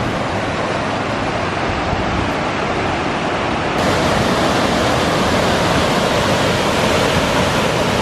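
Waterfall and river water rushing in a steady, loud roar, a little louder and brighter from about four seconds in.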